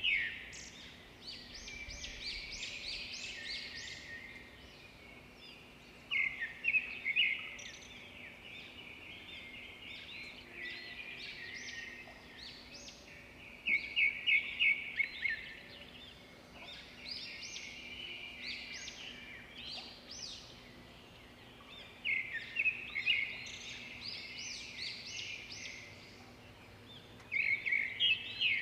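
Songbirds singing: loud, rapid song phrases come back about every eight seconds, with quieter chirping between them, over a faint steady background hiss.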